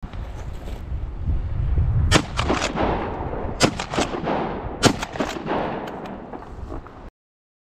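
Shotgun fired several times, with sharp cracks and short echoes clustered between about two and five seconds in. A steady low rumble of wind on the microphone runs underneath.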